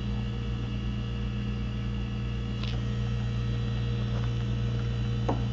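Steady low electrical hum, with a couple of faint light clicks of handling.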